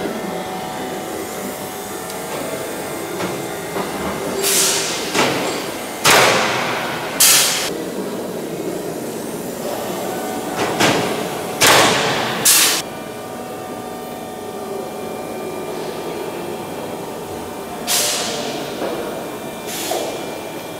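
Short, sharp hisses of compressed air from a pneumatic hand tool worked on a Lancaster's aluminium wing frame, about nine of them in three groups, each starting suddenly and fading away. A steady workshop hum runs underneath.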